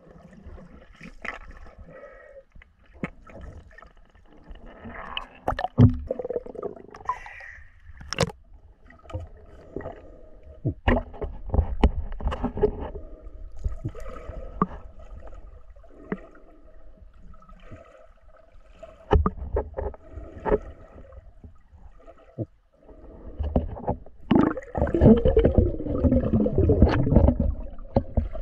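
Water sloshing, gurgling and splashing around a swimmer, with scattered sharp knocks. There are stronger bursts of churning water, the busiest near the end.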